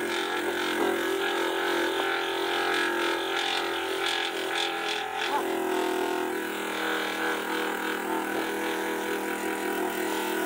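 Lapidary flat-lap machine running with a steady motor hum, a stone held flat and pressed against its wet spinning grinding disc.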